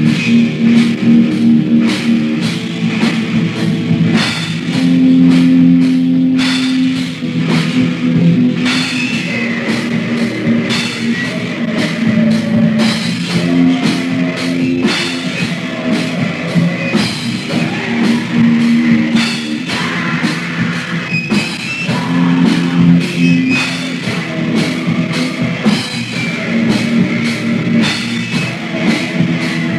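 Hardcore punk band playing: a drum kit hit rapidly under sustained guitar and bass chords, heard as a rough demo-tape recording.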